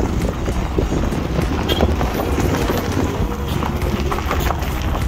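Car tyres crunching and clattering over loose stones on a rough unpaved mountain road, a dense run of small irregular clicks over a steady low rumble.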